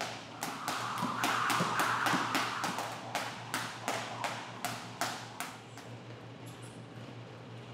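Skipping rope slapping a gym mat in a quick, even rhythm, about three strikes a second, stopping about five and a half seconds in. A few faint squeaks of boxing shoes on the mat near the end.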